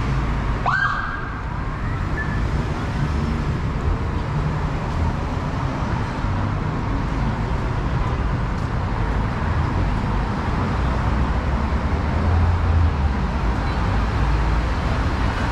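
Steady city street traffic rumble, with one short siren whoop about a second in that rises in pitch, holds briefly and cuts off.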